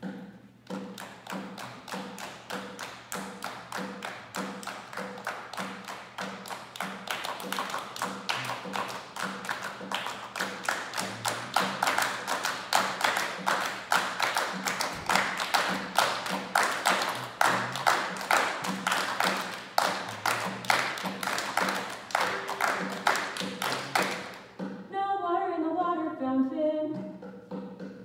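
Steady rhythmic hand clapping and tapping from an a cappella group, several beats a second, building in loudness over the first dozen seconds. Near the end the clapping stops and the group starts singing unaccompanied.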